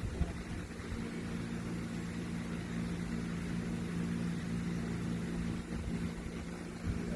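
A dog snoring in its sleep, over a steady low hum.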